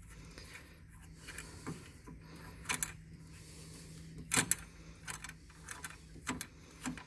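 Scattered metallic clicks and clinks of a ratchet and tools working an 18 mm nut off a car's lower ball-joint bolt, with a few sharper clicks spaced a second or two apart, over a faint steady hum.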